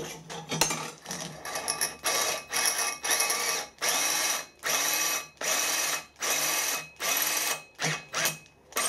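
Hand-held cordless drill run in about ten short bursts, roughly one every 0.7 s, its motor speeding up and slowing in each, as a 5 mm bit cuts dry into a cast iron flywheel hub. A few clicks and knocks of handling come in the first second or so.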